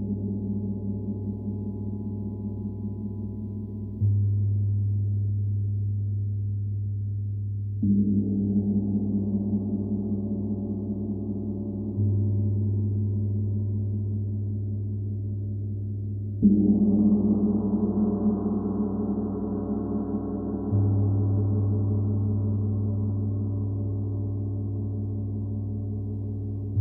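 Gong struck with a mallet about every four seconds, five strokes in all, each washing in over the ringing of the last and slowly dying away under a constant deep hum. Every other stroke brings in brighter ringing overtones, while the rest mainly deepen the low hum.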